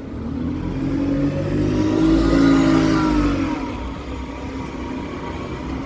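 A bus driving past close by, its engine note building to a peak about halfway through and then fading as it moves away.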